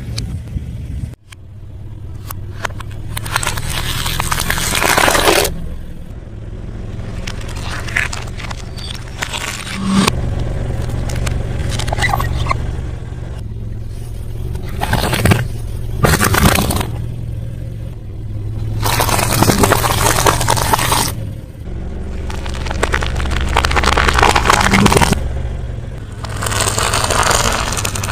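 Close-miked eating sounds: loud crunching and chewing of crunchy food, in stretches a few seconds long, about seven times.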